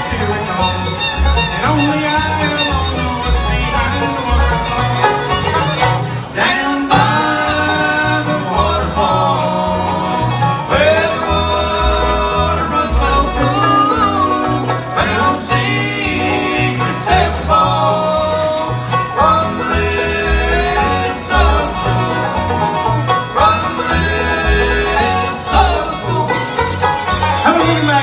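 Live bluegrass band playing: a five-string banjo, an acoustic guitar, a fiddle and a plucked upright bass. From about seven seconds in, voices sing in harmony over the band.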